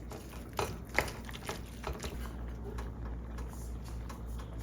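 A spoon stirring a thick cream sauce in a skillet, with irregular light knocks and scrapes of the utensil against the pan, the sharpest about a second in.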